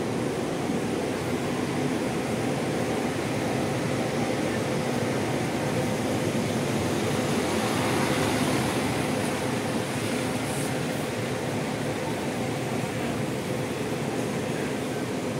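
Bus engine running with a steady hum, growing a little louder about eight seconds in and then easing off.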